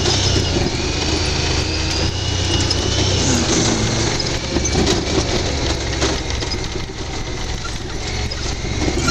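UTV engine running steadily as the machine crawls over rough trail, with short clicks and knocks from the body and suspension.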